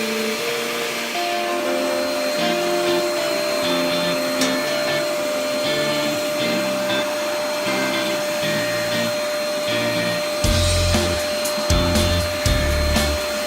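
Cenetop 1200 W electric ash vacuum running steadily with a constant motor whine, under background music; a heavier bass beat comes into the music about ten seconds in.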